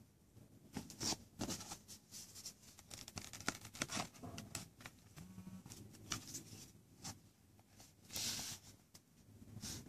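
Handling clicks and knocks as an ASUS PadFone 2 phone is slotted into the back of its PadFone Station tablet dock, with a brief rustle of hands on the tablet near the end.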